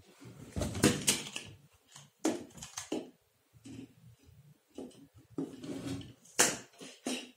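Hard plastic parts of a stand fan knocking and clattering as they are handled and fitted together: a round black plastic base and a blue plastic pole. A series of irregular sharp knocks, several loud ones scattered through.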